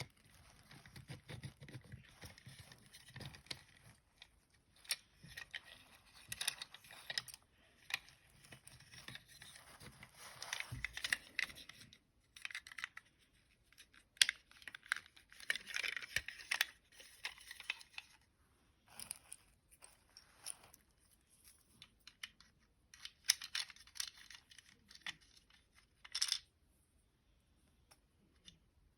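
Small toy vehicle parts being handled and worked on by hand: irregular light clicks, scrapes and rustling in short bursts, falling quiet near the end.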